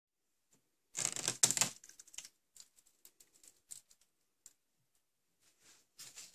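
Mesh screen door of a reptile terrarium being handled and opened by hand. A loud rustle of the mesh about a second in is followed by small, irregular clicks, and another rustle near the end.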